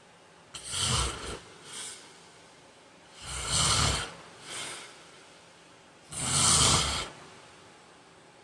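A man snoring in his sleep: three loud snores about three seconds apart, the first two each followed by a shorter, softer breath.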